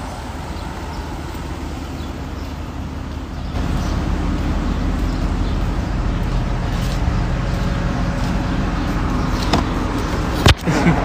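Steady car-engine and street-traffic noise that gets louder and fuller about three and a half seconds in, with a sharp click near the end.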